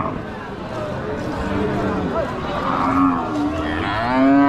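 Cattle mooing, several calls one after another. A loud moo near the end rises and then falls in pitch.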